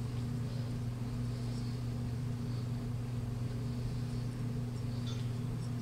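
A steady low background hum, with a few faint soft swishes now and then.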